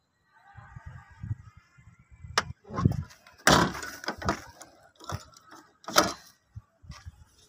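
Several sharp knocks and clunks from handling a car's doors and body, the loudest about three and a half and six seconds in.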